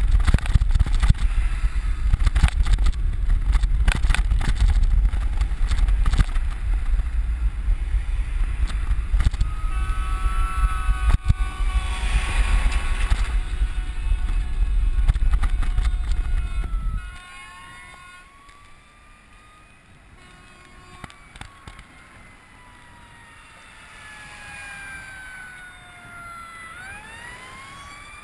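Heavy wind rumble and rattle on a bike-mounted camera while riding, which drops away suddenly about two-thirds of the way in. An emergency-vehicle siren wails, rising and falling, through the second half.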